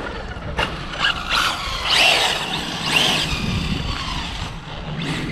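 Traxxas Rally RC car driving, its brushless motor on a Castle Mamba ESC whining up and down in pitch as the throttle is worked, over a steady hiss.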